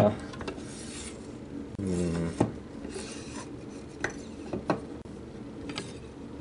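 Metal cutlery rattling and clinking as knives are sorted through, with a few sharp clinks standing out.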